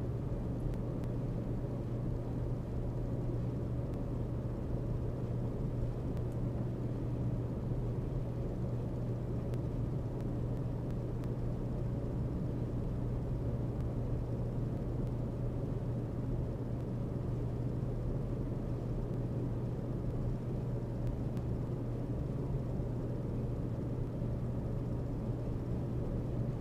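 Domestic cat purring, a steady low rumble.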